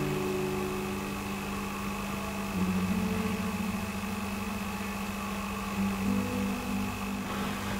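Slow ambient background music: low held tones that shift to new notes every few seconds, with a faint steady high whine that stops shortly before the end.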